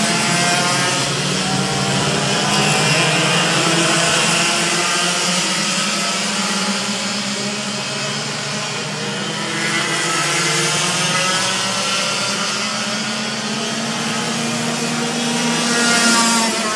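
Several racing kart engines buzzing at once, their pitches rising and falling as the karts accelerate and lift through the corners, over a steady hiss from the wet track. The loudest moment comes about a second before the end.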